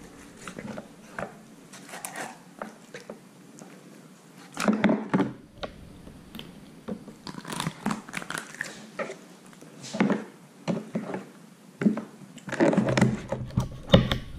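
A skinned common murre (turr) carcass being cut with a knife and torn apart by hand on a plastic cutting board: irregular short wet tearing and crunching sounds, loudest about five seconds in and again near the end.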